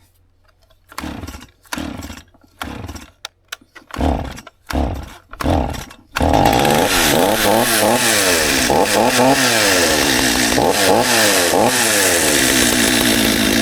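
Two-stroke chainsaw being pull-started: several short bursts as the starter cord is pulled, then about six seconds in it catches and runs, revved up and down with the pitch rising and falling, until it stops near the end.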